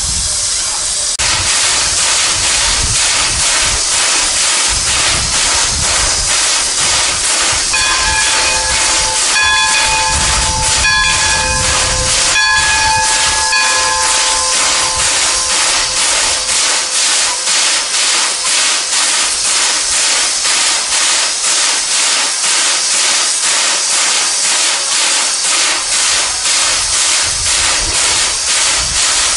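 Steam locomotive 8630 (JNR Class 8620) venting steam in a loud, steady hiss that starts abruptly about a second in and pulses evenly. From about a quarter to halfway through, a steam whistle sounds a string of short toots of several notes at once.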